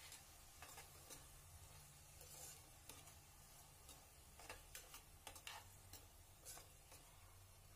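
Faint, irregular clicks and scrapes of a spoon stirring chopped onion and tomato in an open pressure cooker pot, over a low steady hum.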